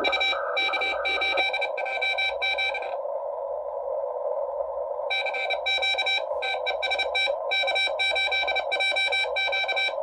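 Morse code (CW) received on a Xiegu G90 HF transceiver: a keyed tone beeping out dots and dashes over steady receiver hiss, with a pause in the keying of about two seconds near the middle.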